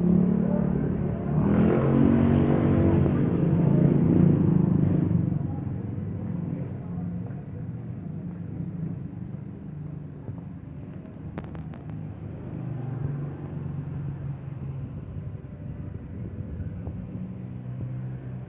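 A motor vehicle's engine passing close, louder for about four seconds near the start, then a steady low engine rumble of traffic with a couple of faint clicks.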